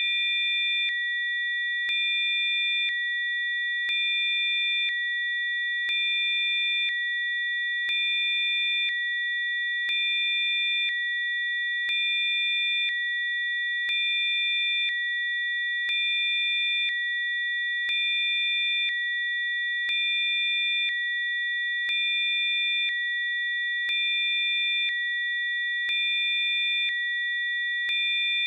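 Synthesized Rife-frequency sine tones: several steady, high-pitched electronic tones held together, with a faint tick and a slight change in level about once a second.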